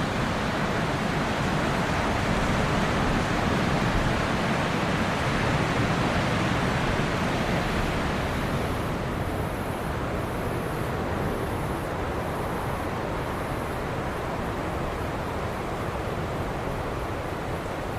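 Waves washing on a tropical beach: a steady rush of surf that eases a little about halfway through. Near the middle, a faint high-pitched pulsing comes about once a second, six times.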